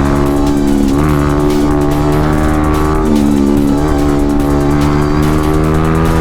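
Motorcycle engines running at a steady cruising speed while riding in traffic, with slight changes in pitch about a second in and again around the middle, under background music.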